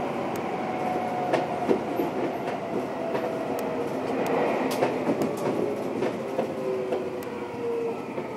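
Seibu 20000 series electric train heard from inside its motor car, running on the line. The whine of the VVVF inverter and traction motors falls slowly in pitch as the train slows, over a steady rumble of wheels on rail with scattered sharp clicks from the rail joints.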